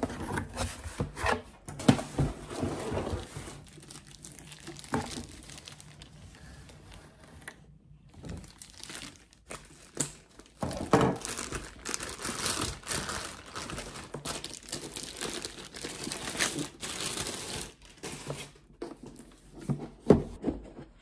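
Packaging being handled and unwrapped: cardboard box flaps and plastic wrapping rustling and crinkling, with a few sharp knocks as the boxes are set down and moved.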